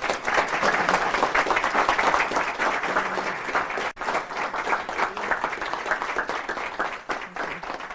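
Audience applauding, a dense run of many hands clapping. It starts suddenly and eases a little in the second half.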